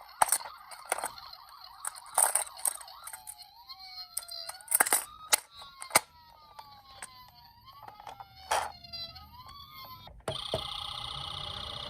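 Toy emergency-vehicle minicar's electronic siren wailing, its pitch sliding up and down again and again, among sharp clicks and knocks of the toy being handled. About ten seconds in, a louder, steady siren sound cuts in suddenly.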